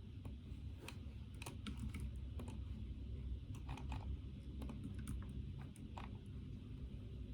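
Typing on a computer keyboard: irregular bursts of key clicks that stop about six seconds in, over a steady low hum.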